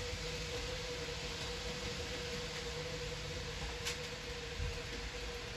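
Trains passing on elevated railway tracks, a steady muffled rumble heard through window glass, with a constant hum underneath. A single sharp click just before four seconds in.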